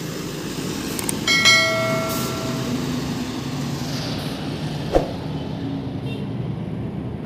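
Steady low engine noise of a coach bus and street traffic. About a second in comes a short bright ringing chime, and near five seconds a single sharp knock.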